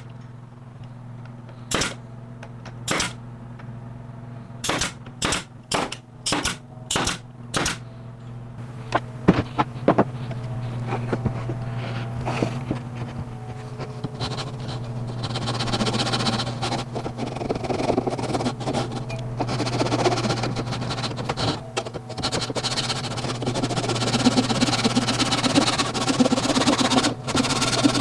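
Pneumatic brad nailer firing about ten nails, one sharp shot every half second or so, over the first eight seconds. After that, a machine starts running and grows steadily louder to the end.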